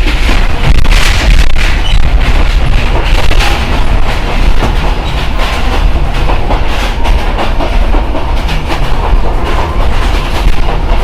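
Simanta Express passenger train running on the track: a loud low rumble with many sharp clicks of the wheels over the rail joints.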